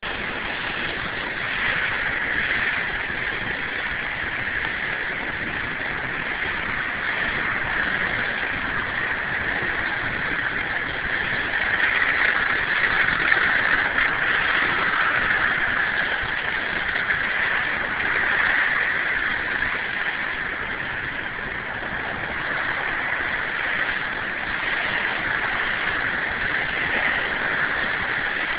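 Pressure washer spraying a concrete sidewalk: a steady hiss of high-pressure water against the pavement over the machine's running motor, swelling slightly now and then.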